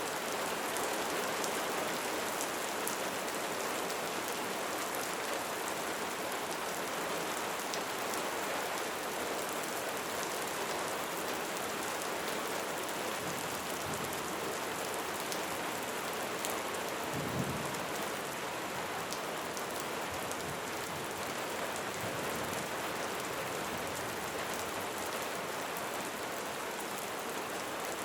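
Steady light rain falling, an even hiss of many drops, with a brief low rumble a little over halfway through.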